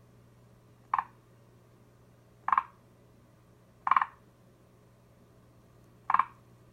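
Forest green tree frog (Zhangixalus arboreus) calling: four short, clucking croaks spaced a second or two apart.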